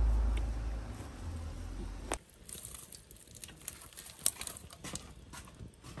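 A low rumble for about two seconds that cuts off abruptly. After it, a wood fire crackles under a cast-iron cauldron with scattered sharp pops.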